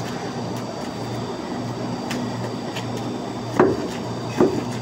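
Beef chuck tender being cut into cubes on a cutting board: two dull thuds against the board a little under a second apart near the end, over a steady background hum.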